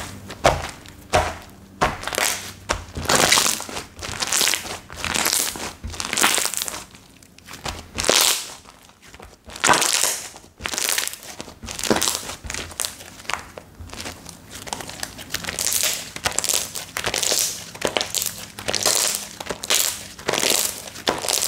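Slime being squeezed, stretched and folded by hand, crackling and crinkling in repeated strokes of about one or two a second.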